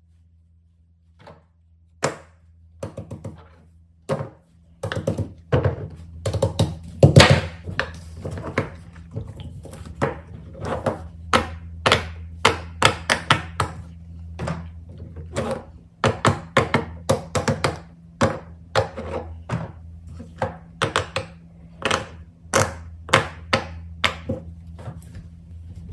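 Fidget toys being handled and set down on a hard surface: an irregular, dense run of sharp clicks, taps and thunks over a steady low hum.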